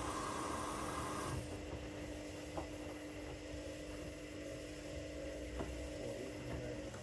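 Hoover front-loading washing machines running a 60-degree wash. A motor whine and hiss cut off about a second and a half in, then a steady hum carries on with two light clicks.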